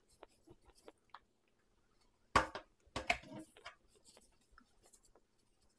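A seasoning shaker being shaken over crab legs in a plastic bowl: soft scattered ticks and rustles, with a few sharper taps and rattles of the shaker about two and a half to three and a half seconds in.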